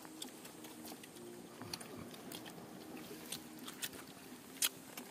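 Small scattered clicks and rustles of a group eating rice and fish by hand off a banana leaf, with one sharper click about four and a half seconds in.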